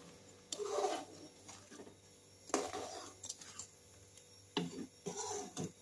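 Metal ladle stirring thick milky carrot kheer in a metal kadhai, with a few separate scrapes and soft clinks against the pan.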